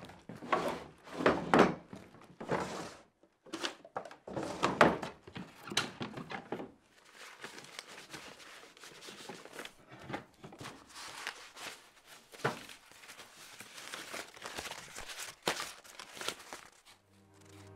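Someone rummaging through a wooden cabinet: irregular knocks and thunks as drawers and doors are opened and shut and things are shifted, with paper rustling in between. The knocks are loudest in the first few seconds.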